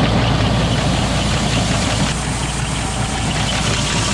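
John Deere 4230 tractor's six-cylinder diesel running steadily with a diesel knock, just after a hard start on starting fluid.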